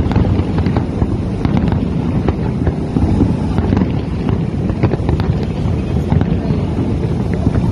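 Wind buffeting the microphone in a steady low rumble, with many short pops and crackles of distant fireworks scattered through it.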